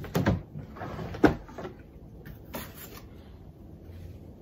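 Rummaging in a drawer: a few short knocks and rustles of things being moved, the sharpest knock about a second in, then quieter handling.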